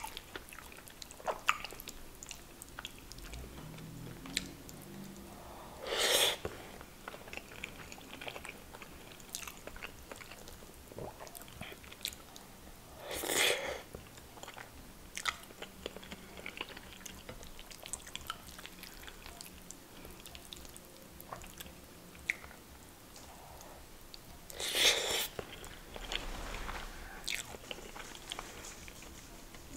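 Close-miked chewing and wet mouth sounds of someone eating curry and rice by hand: soft smacks and small clicks throughout. Three louder short rushes of noise come about six, thirteen and twenty-five seconds in.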